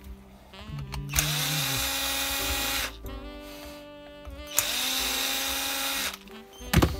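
Vitals rotary hammer's electric motor run twice in short bursts of about a second and a half. Each time it spins up and then coasts down when the trigger is released. A short sharp knock comes near the end.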